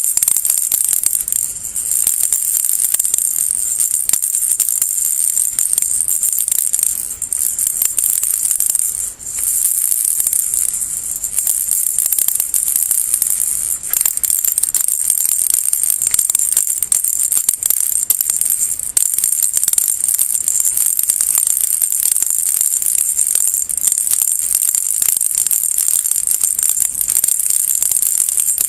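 Baby rattle shaken continuously, a dense high-pitched rattling, with short breaks about 7 and 9 seconds in.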